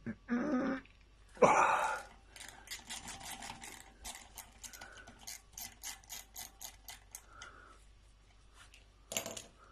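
Ratchet wrench clicking in a quick run of about four clicks a second, turning a T27 Torx bit driven into a stripped Allen screw to back the screw out of a bike disc brake rotor. A louder, brief handling clatter comes just before the clicking starts.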